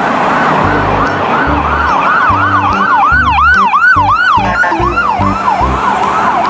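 Ambulance siren in a fast yelp, its pitch swooping up and down about three times a second, with a low pulsing beat underneath.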